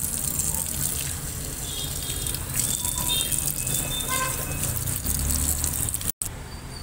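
Tap water running and splashing into a stainless steel sink as a hand is rinsed, steady throughout, stopping abruptly about six seconds in.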